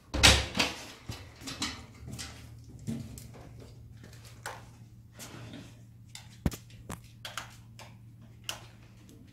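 A wooden door bumps and scrapes as it is pushed open, followed by scattered light clicks and taps on a hard floor over a steady low hum.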